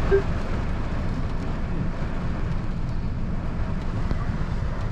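Heavy rain falling steadily on a car's roof and windows, heard from inside the cabin.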